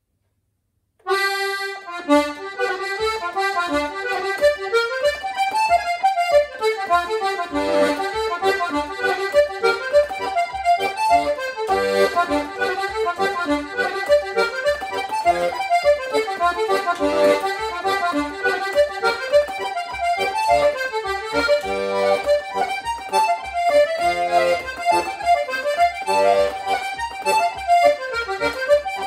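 Paolo Soprani button accordion playing a fast Irish reel. It comes in about a second in with a held opening note, then runs into the quick melody over a steady beat of bass chords.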